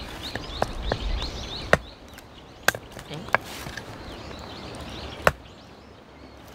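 Axe chopping firewood: a handful of sharp, irregularly spaced knocks, the loudest about two seconds in and again near the end.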